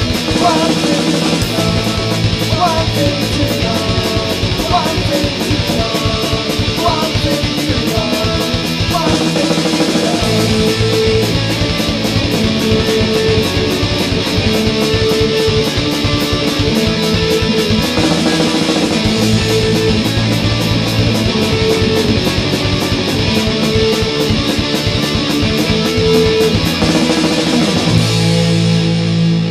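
Punk rock song with distorted electric guitar chords over fast, steady drumming. Near the end the drums stop and a chord is left ringing.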